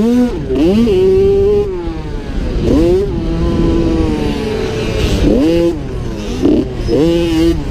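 Onboard sound of a 50cc two-stroke youth motocross bike's engine at racing speed, the revs climbing quickly and dropping again over and over as the throttle is worked through the track, with two longer steady pulls in the first half.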